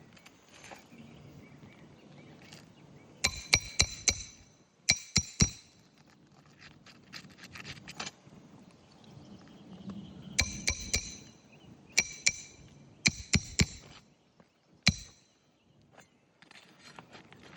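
Hammer driving roofing nails into asphalt shingles: short runs of sharp, ringing metal strikes, in about six bursts of one to four blows with pauses between.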